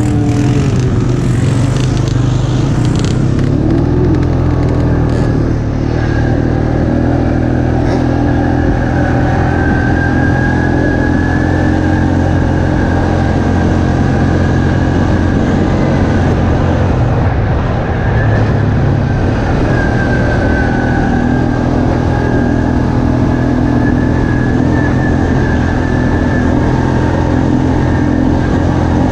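ATV engine running steadily under way, with a thin high whine over it. The engine eases off briefly about six seconds in and again past the middle.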